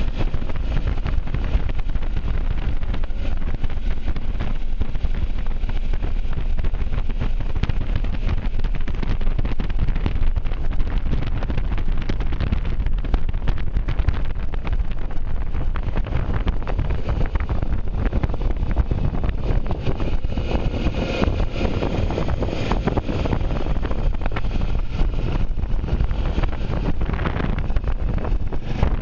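Wind buffeting the microphone of a moving motorcycle, over the steady rumble of the bike and its tyres on the road. The wind rush swells for a few seconds past the middle.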